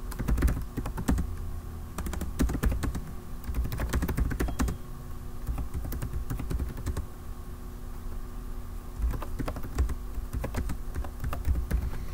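Typing on a computer keyboard: runs of quick keystroke clicks in bursts with short pauses between them.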